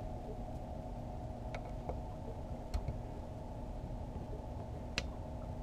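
A steady low mechanical hum, with four short light clicks or taps, the loudest about five seconds in.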